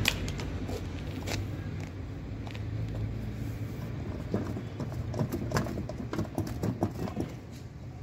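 Street background: a steady low hum of traffic with scattered, irregular clicks and knocks, thickest in the second half.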